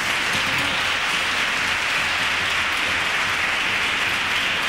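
Audience applauding steadily: a dense, even clapping from a crowd.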